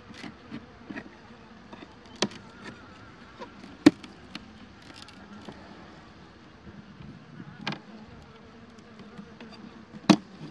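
Honeybees buzzing around an open hive, with four sharp wooden knocks and clicks from the hive frames being handled; the knocks about 4 s in and near the end are the loudest.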